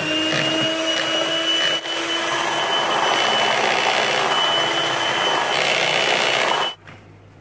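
Electric hand mixer running at a steady whine, its beaters whisking egg cake batter in a plastic bowl, then switched off abruptly near the end.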